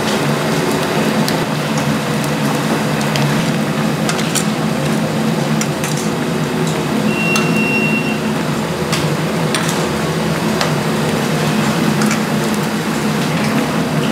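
Busy grill kitchen: gas burners running under stainless-steel trays of simmering braised cutlassfish, with a steady hum throughout. Metal tongs and a ladle clink against the trays now and then, and a short high beep sounds about seven seconds in.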